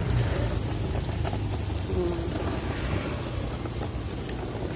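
Hard plastic wheels of a child's ride-on toy car rolling over rough concrete, a steady rumble with scattered clicks and rattles.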